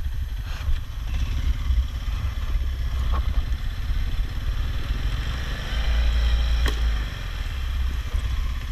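ATV engine running at low speed with a steady low rumble that swells briefly about six seconds in. A few sharp clicks sound over it.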